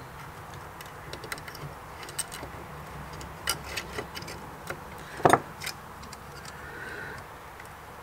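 Small scattered clicks and taps of plastic and metal parts being handled as a ticket printer's print mechanism and ribbon cable are fitted back into its case, with one louder click about five seconds in.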